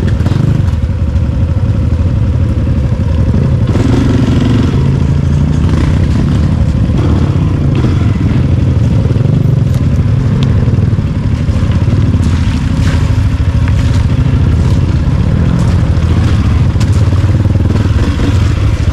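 Dirt bike engine running at low trail speed, its pitch rising and falling with the throttle, with clatter and knocks from the bike working over rough, rocky ground.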